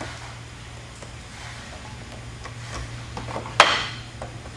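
Hand screwdriver turning a bolt into a cam lock nut in a wooden table rail: a few light clicks, then a sharper click about three and a half seconds in, over a steady low hum.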